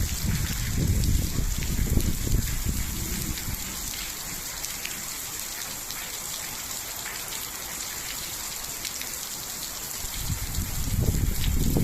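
Rain falling: a steady hiss scattered with the ticks of single drops. A low rumble comes in over it during the first few seconds and again near the end.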